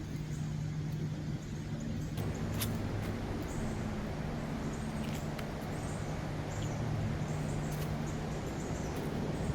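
Outdoor trail ambience: a steady rush of wind and distant road traffic, with scattered crunching steps on dry leaves and faint high bird chirps.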